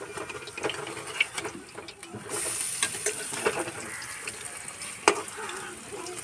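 Cauliflower fritters sizzling in hot oil in a metal kadhai, with a metal spatula scraping and clinking against the pan as they are turned. The sizzle grows louder about two seconds in, and there is one sharp clink near the end.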